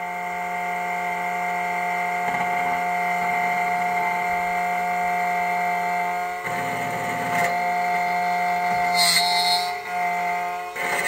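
SEC-E9 CNC key cutting machine's spindle motor whining steadily as its cutter mills the blade of a car key, with brief shifts in tone about six and nine seconds in as the carriage moves along the cut.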